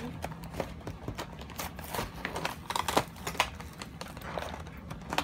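Plastic toy packaging and cardboard box crinkling and crackling as they are handled and pulled open, with irregular sharp clicks and a sharper snap about three seconds in.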